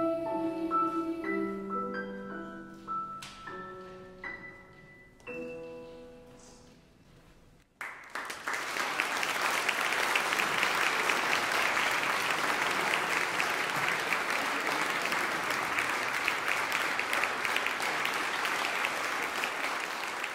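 The closing notes of a girls' choir's lullaby ring and fade, with a few soft notes struck and dying away. About eight seconds in, the audience breaks into steady applause.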